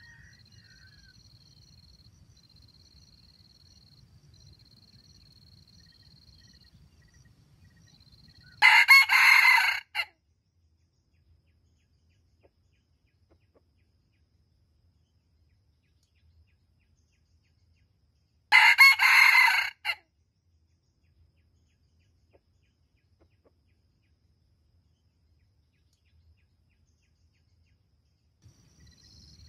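Red junglefowl rooster crowing twice, about ten seconds apart. Each crow lasts about a second and a half and breaks off into a short stammering final note. Faint insect chirring comes before the first crow.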